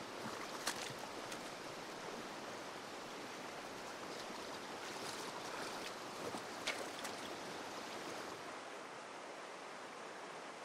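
Steady rush of flowing river water, with a few short clicks standing out above it.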